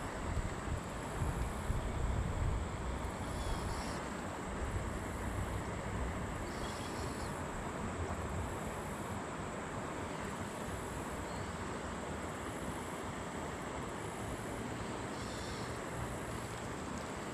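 Outdoor creekside ambience: low wind rumble on the microphone, with a steady high-pitched insect drone and insect calls repeating at an even pace.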